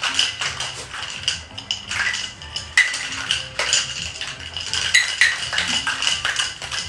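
Ice rattling and clinking inside a Boston cocktail shaker, a metal tin over a glass, shaken hard to mix a margarita. It makes a fast, uneven rattle over background music.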